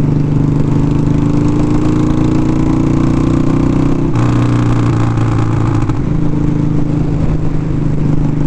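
Motorcycle engine running at road speed, its pitch rising gently and then changing about four seconds in and again near six, with wind rumbling on the helmet-mounted microphone.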